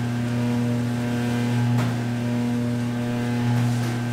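A steady machine hum with a low tone that swells softly about every two seconds, over faint wet squelches of gloved hands mixing blood-soaked glass-noodle sundae filling in a steel tub.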